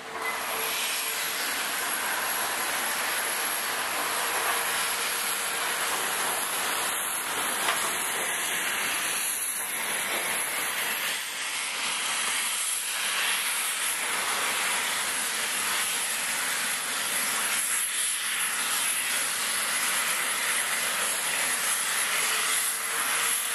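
Steam locomotive hauling passenger coaches past at close range: a steady hiss of steam that starts abruptly, mixed with the running noise of the train rolling by.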